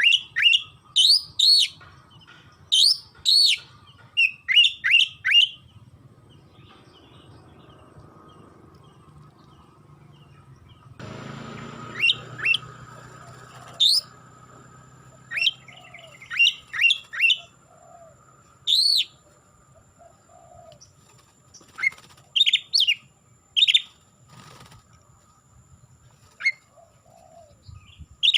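Oriental magpie-robin (kacer) singing: loud, sharp, short whistled notes in quick clusters of several a second, with a pause of a few seconds early on before the song resumes.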